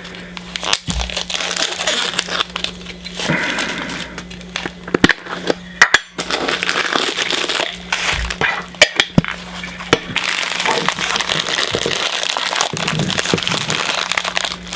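Plastic packaging of a Funko Soda can crinkling and crackling as it is unwrapped and opened, with sharp cracks and clicks in the middle and a steady crinkling rustle in the last few seconds.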